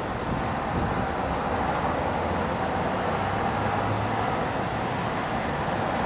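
Strong wind blowing steadily, an even rushing noise mixed with distant city traffic.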